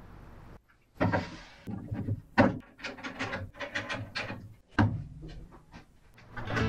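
Irregular knocks and clunks of a birch-plywood fence with an aluminium T-track being handled and set down on a bandsaw's metal table.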